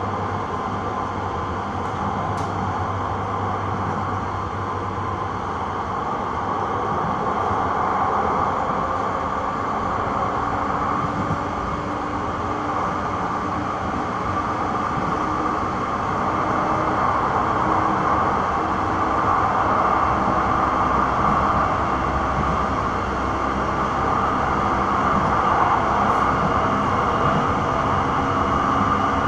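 Interior running noise of a Siemens S200 light-rail car in motion: a steady rush and rumble of wheels on rail with a few faint steady tones, growing somewhat louder over the stretch.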